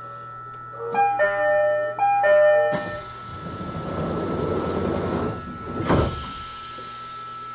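Door chime of an E129 electric train sounding a two-note ding-dong twice, then the doors sliding shut with a rushing hiss and ending in a thud.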